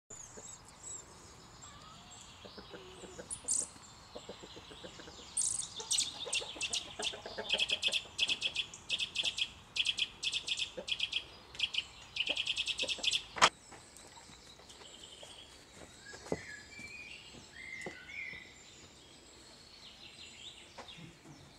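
Eurasian nuthatches giving a long run of sharp, high alarm calls, about two a second, packed into faster runs near the end, the distress call set off by a cat near the nest. A single sharp click comes just after the calls stop, followed by fainter scattered bird notes.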